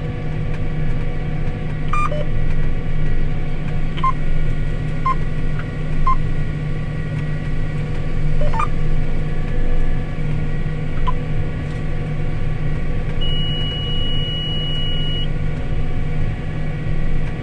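Combine harvester running, heard inside the cab as a steady low hum, with a short electronic beep every second or two, about six in all, that stop after about eleven seconds.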